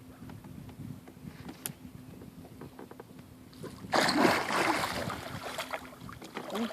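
Water splashing hard beside a fishing boat, starting suddenly about four seconds in and lasting a couple of seconds: a large muskie thrashing at the surface as it is being landed.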